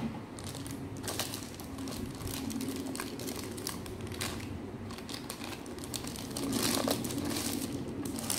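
Thin clear plastic packaging bag crinkling irregularly as a clear plastic curved dart magazine is handled and slid out of it.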